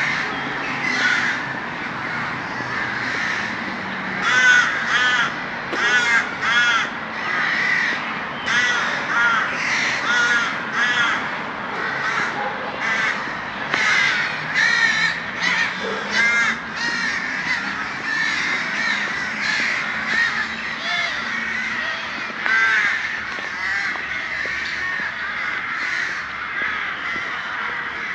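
A large flock of crows cawing, many harsh calls overlapping without a break.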